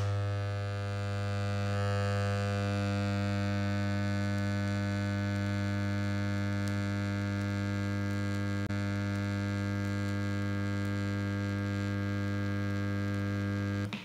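Rewound microwave oven transformer humming steadily with a buzzing edge while its secondary is dead-shorted through jumper clamps, drawing around 480 amps. It cuts off suddenly at the very end.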